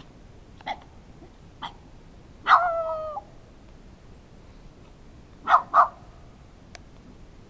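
A small tan Shiba-type dog barking: two faint short yips in the first two seconds, a longer drawn-out bark about two and a half seconds in, then two loud sharp barks in quick succession about five and a half seconds in.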